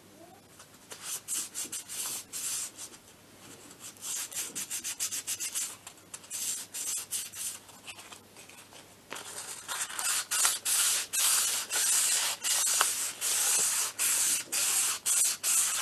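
Abrasive paper rubbed by hand back and forth on the steel clutch drum of an MBK Spirit scooter, scouring off pitted surface rust. Scraping strokes come in short bouts at first, then a louder, faster, steadier run from about nine seconds in that stops near the end.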